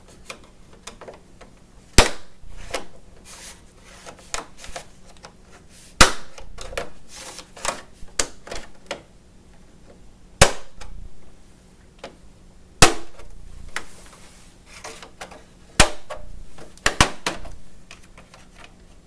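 Plastic snap-fit clips on a Lenovo S500Z all-in-one's rear cover popping loose one after another as a plastic pry tool works around the edge: about seven sharp snaps a few seconds apart, two close together near the end, with quieter scraping and clicking of plastic in between.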